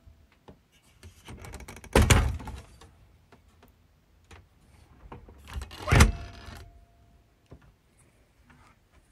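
Dometic motorhome fridge door, which opens from either side, being swung open and shut by hand: two firm clunks about two and six seconds in, each followed by a brief rustle, with faint clicks between.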